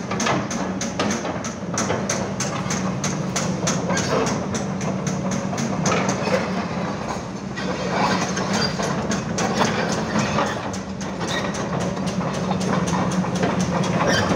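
Kobelco SK200-8 excavator's diesel engine running steadily: a low, even hum with a fast, regular clatter.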